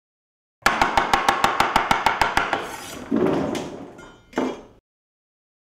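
Quick, even knife chops on a wooden cutting board, over a dozen in under two seconds. Two shorter swells of sound follow and fade away.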